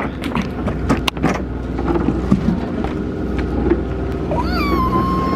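Boat engine idling with a steady low hum, with scattered knocks and footsteps on the boarding ramp. Near the end a high tone rises briefly and then holds.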